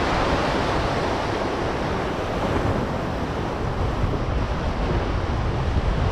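Sea surf washing against rocks, with gusty wind buffeting the microphone, the buffeting heavier in the second half.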